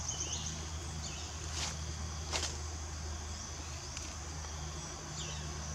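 Woodland ambience: a steady high insect drone over a low steady hum, with a few short falling chirps and two brief sharp clicks a little under a second apart, about one and a half seconds in.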